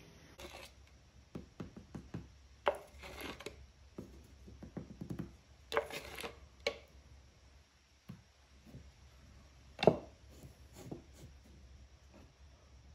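Scattered light taps, knocks and short scrapes of benchtop work: a plastic mixing cup and a wooden stirring stick being handled and adhesive being spread onto a wooden waste block, with one sharper knock about ten seconds in.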